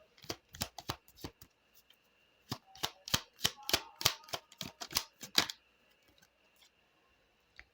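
Lenormand playing-card deck being shuffled and handled: a quick, irregular run of sharp card snaps and slaps that stops about five and a half seconds in.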